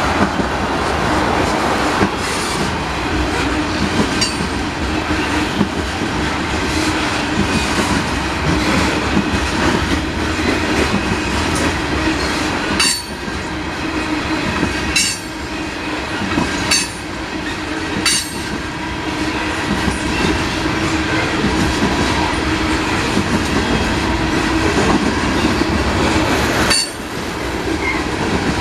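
Freight train of tank cars rolling past: a steady rumble of steel wheels on rail with a faint steady whine, and several sharp clicks in the middle and one more near the end.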